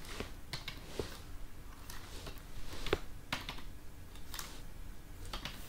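Typing on a computer keyboard: scattered, irregular keystrokes, one or two a second, with one louder clack about halfway through.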